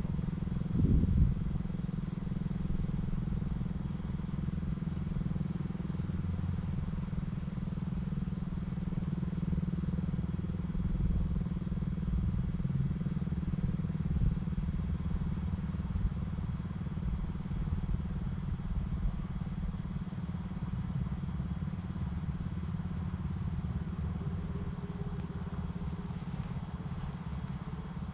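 Federal Signal STH-10 outdoor warning siren winding down after a test: a low, nearly steady hum as its rotor coasts down.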